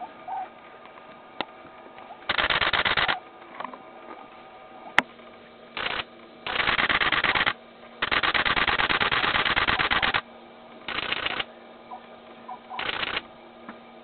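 Several bursts of rapid, evenly spaced clicking, each lasting from a fraction of a second to about two seconds, with a couple of single sharp clicks between them.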